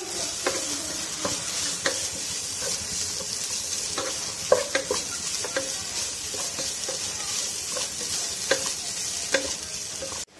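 Wooden spatula stirring and scraping a turmeric onion-and-chicken mixture frying in a nonstick pot: a steady sizzle of frying with irregular knocks of the spatula against the pan.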